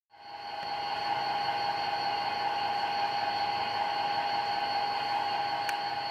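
Steady electric whir and hum of an HO-scale model railroad layout running. It fades in over the first second, then holds even, with a high whine over a lower hum.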